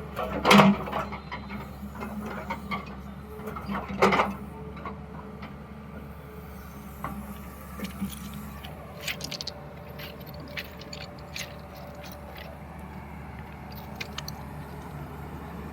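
A JCB digger's diesel engine running steadily while it digs, with loud metallic clanks about half a second in and again about four seconds in, and lighter knocks and clicks after that.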